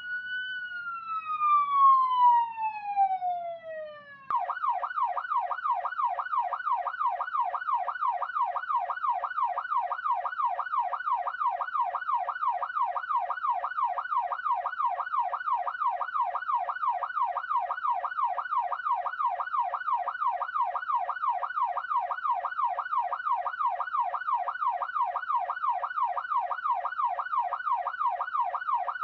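Police siren: a slow wail falling in pitch, which about four seconds in switches abruptly to a fast yelp, rising and falling about two or three times a second.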